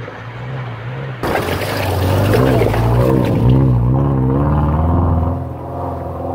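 Subaru engine revving up and down under load as the car works along an off-road track, with a rush of water or mud splashing about a second in.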